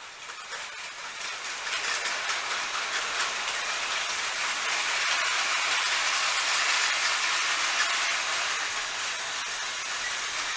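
Battery-powered Plarail toy trains running along plastic track: a steady whirring rattle of small motors and plastic wheels with many fine clicks. It builds over the first couple of seconds as the trains pass close by and eases near the end.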